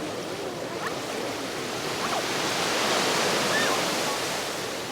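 Ocean surf washing onto a beach, swelling as a wave breaks about three seconds in and then easing off, with faint distant voices of beachgoers underneath.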